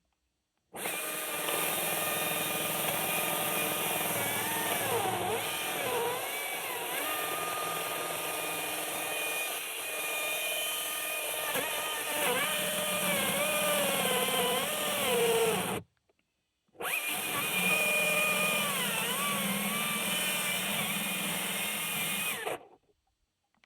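Husqvarna 540i XP battery-powered chainsaw running in two long bursts, about fifteen seconds and then about six seconds after a one-second stop. Its motor pitch repeatedly dips and recovers as the chain is loaded.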